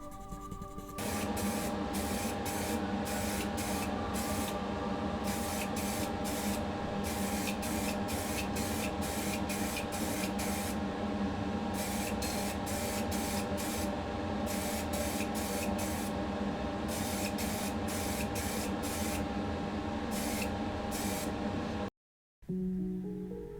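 Paint being sprayed onto a diecast toy body in short hissing bursts, about two a second with a few brief pauses, over a steady hum.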